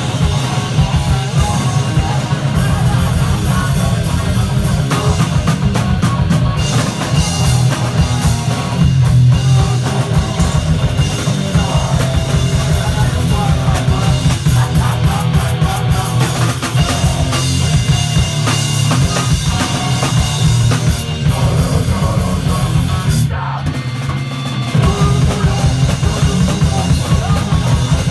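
Rock band playing live: a full drum kit pounding with electric guitar. The playing briefly drops back about three-quarters of the way through before coming back in full.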